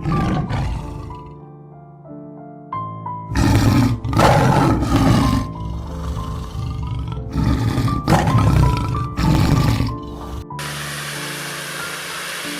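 Background music with a stepping melody, broken by several loud, rough animal roars of about a second each, from about three seconds in until near the end; a steady hiss then takes over.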